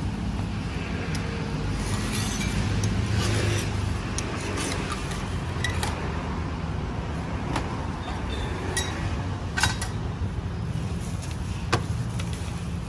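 A steady low rumble with a faint hum, with a few sharp metallic clinks and taps from the pancake pan and utensils; the loudest clinks come about two-thirds of the way through and again near the end.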